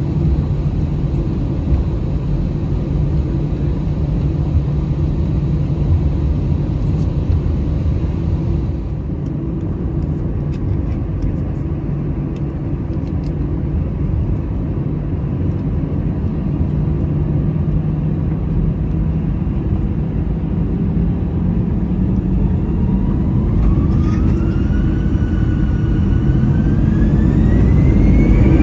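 Airbus A320 jet engines heard from inside the cabin, a steady low rumble while taxiing. About 22 seconds in, a whine rises steadily in pitch and the rumble grows louder as the engines spool up to takeoff thrust.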